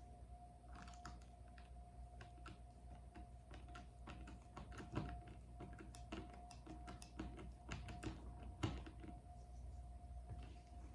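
Faint, irregular light clicks and taps of small plastic parts and screws being handled and screwed together as a Traxxas Revo nitro fuel tank is reassembled.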